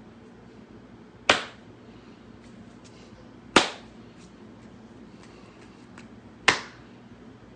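Three single hand claps, sharp and loud, about a second in, midway and near the end, over quiet room tone.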